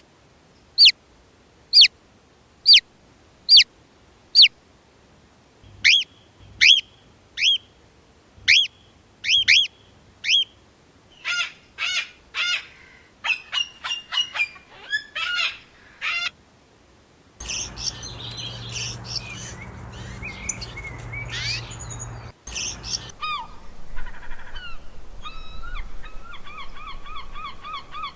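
A succession of different birds calling. First come sharp falling whistles about once a second, then quick chirps and twitters, and near the end a fast, evenly repeated trill.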